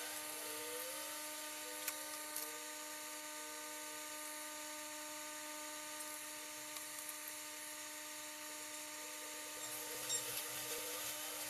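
Steady electrical whine of bench electronics at a soldering station, several fixed pitches over a hiss, with a few faint clicks about two seconds in and near the end.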